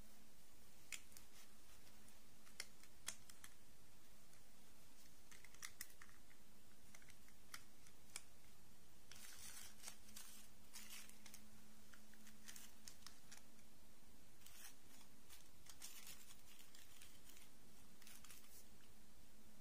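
Plastic dolls being handled and set down: scattered light clicks in the first half, then bouts of rustling of the dolls' dresses later on, over a faint steady hum.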